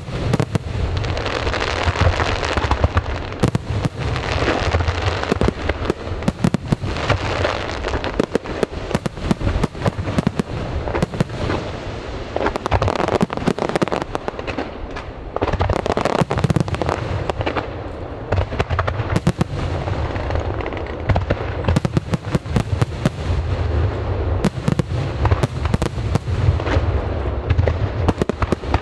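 Aerial fireworks display: a continuous barrage of bursts and booms with dense crackling and hissing between them.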